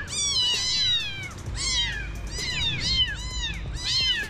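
Several very young, motherless kittens mewing in a quick run of overlapping high-pitched meows, each one rising and then falling in pitch. They are hungry distress cries from orphaned kittens that have not eaten.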